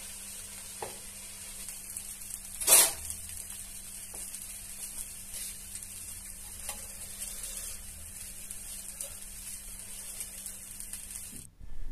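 Veg fried rice sizzling in a hot kadai as it is stirred with a spatula, with light scrapes and knocks against the pan and one louder clatter about three seconds in.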